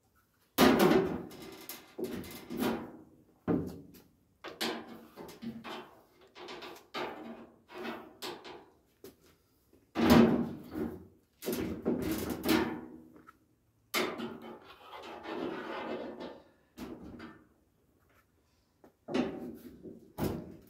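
A red-handled hand scraper scraping and levering along the edge of a Ford Escort Mk1's metal front wing, in a dozen or so irregular strokes and knocks. The loudest come about a second in and about ten seconds in.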